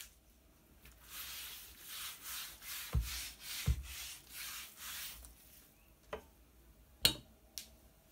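A cloth wiped back and forth across a wooden butcher-block worktop, about two strokes a second, with two low thumps partway through. Then a few sharp knocks on the wood; the loudest, about seven seconds in, is a chef's knife being set down.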